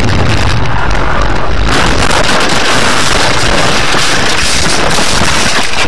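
Dashcam car crashing off a snowy road: a heavy low road rumble, then from about two seconds in a continuous loud racket of scraping and banging as the car goes off the road.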